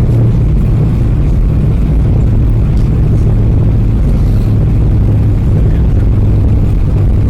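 Cabin noise of an Airbus A320 taxiing after landing: a steady low rumble with a constant drone from the engines at idle.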